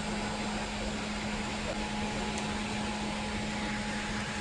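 Steady air-conditioning and ventilation hum inside a Boeing 787 passenger cabin: an even hiss with a steady low tone under it.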